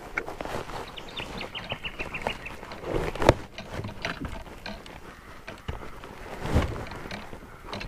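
Small clicks and knocks of fishing tackle and kayak gear, with one sharp loud knock about three seconds in and a duller thud near the end. A bird gives a quick series of notes falling in pitch about a second in.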